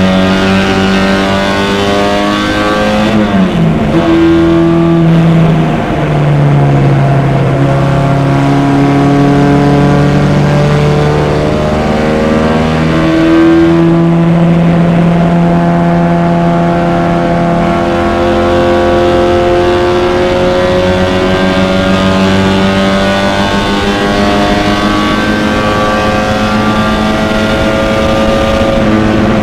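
Four-cylinder engine of a vintage MG race car, heard from the cockpit at racing speed. Its note drops sharply a few seconds in as the car slows for a corner, then climbs steadily under hard acceleration for the rest, with a step up in pitch about halfway through.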